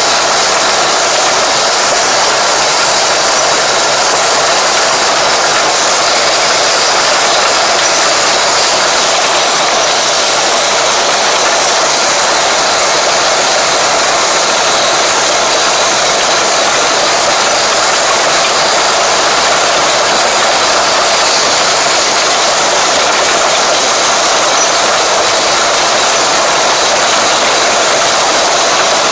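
Tractor engine running with its ridging implement at work, heard close up at the implement's granule hopper: a loud, steady mechanical noise with no breaks.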